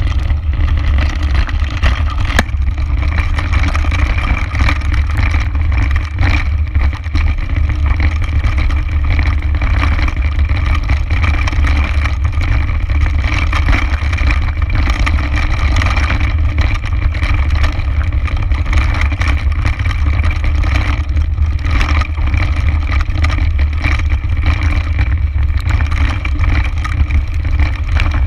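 Mountain bike running fast down a rocky, gravelly trail, heard from a chest-mounted action camera. A steady, heavy wind rumble on the microphone runs over the crunch of tyres on loose stones and the rattle of the bike.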